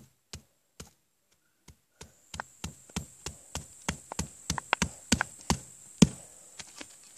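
A hammer striking fire-charred batteries: a few scattered blows, then a quick irregular run of about three knocks a second from about two seconds in, the loudest a little before the end.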